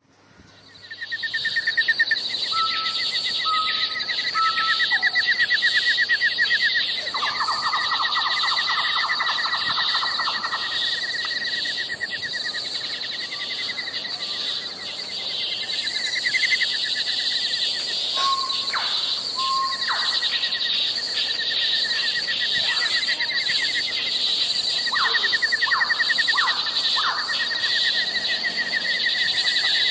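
Insects trilling steadily in fast, high-pitched pulses, with short bird chirps now and then. It fades in over the first second or two.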